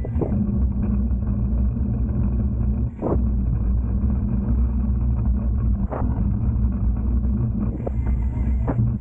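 Steady wind rumble on an action camera's microphone while cycling along a road, with a sharp knock about three seconds in and another about six seconds in.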